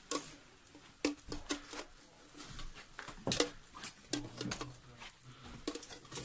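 Footsteps crunching and scuffing over rubble and broken boards on a littered floor, heard as irregular clicks and knocks.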